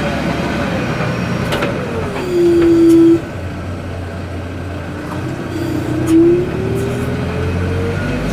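XCMG backhoe loader's diesel engine running under hydraulic load while the arm works. A whine falls in pitch and holds loud for about a second, two seconds in, then climbs again through the second half, with a few light clanks.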